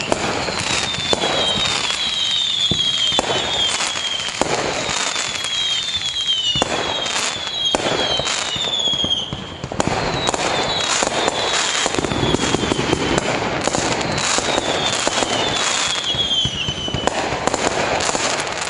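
Fireworks display: a continuous barrage of bangs and crackling, with repeated high whistles that fall in pitch.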